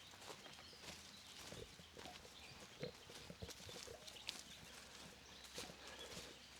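Faint, irregular crunches and clicks of movement on the forest floor, steps among dry leaves and twigs, over a quiet outdoor background.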